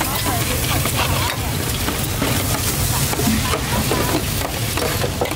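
Short rice noodles (lort cha) sizzling on a large flat steel griddle tray. A metal spatula scrapes and tosses them with repeated clinks against the steel.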